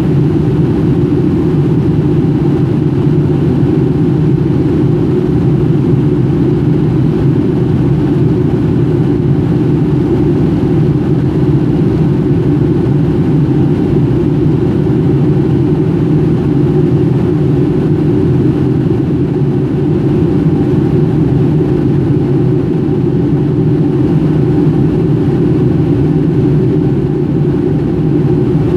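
Steady cabin noise of a Boeing 757-200 climbing after take-off: a loud, low drone from the jet engines and the rush of air along the fuselage, heard from a window seat inside the cabin.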